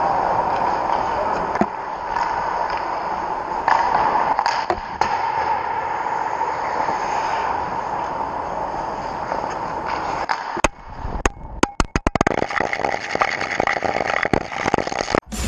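Ice hockey play heard from a goalie's helmet camera: skates scraping the ice and a few stick knocks over a steady arena hum. Late on, the sound cuts in and out with a quick run of sharp clicks.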